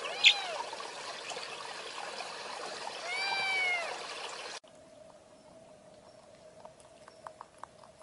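Stream water running steadily under two kitten meows: a short, sharp one just after the start and a longer, falling one about three seconds in. About four and a half seconds in, the sound cuts off abruptly to a much quieter bed with a faint steady hum and scattered light clicks.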